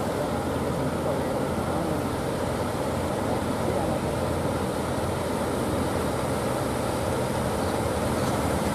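Fishing boats' engines running steadily, mixed with the wash of breaking surf.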